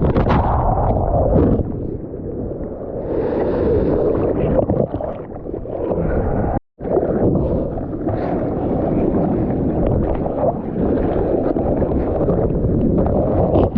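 Strong wind buffeting the microphone over sloshing, gurgling seawater. The sound cuts out for a moment about halfway through.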